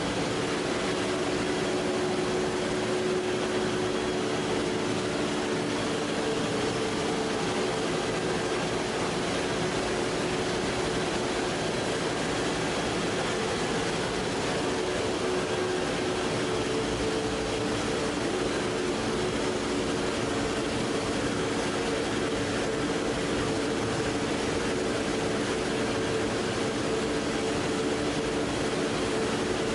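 PP/PET box strapping extrusion line running, its motors and rollers turning: a steady machine hum with a few held tones over an even noise, unchanging throughout.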